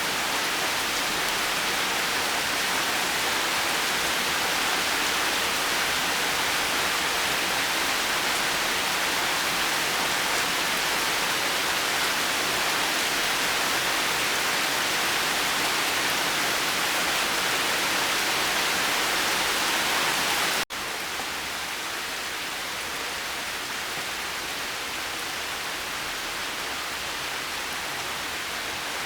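Steady rain hiss. A little past two-thirds of the way through it cuts out for an instant and comes back quieter and duller, where one rain recording is spliced onto another.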